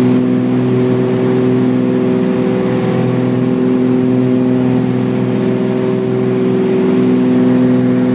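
Light aircraft's piston engine and propeller droning steadily at constant power during the climb-out, heard from inside the cabin as an even, unchanging hum.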